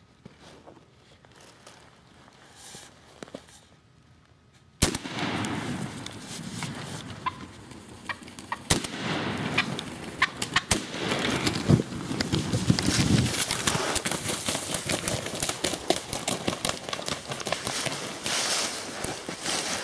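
Wild turkeys calling: after near quiet, a loud dense run of rapid rattling sounds starts suddenly about five seconds in and carries on.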